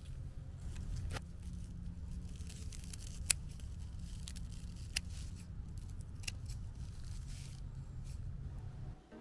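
Scissors snipping through bunches of garlic chive stalks: several sharp snips spaced a second or two apart, over a steady low rumble.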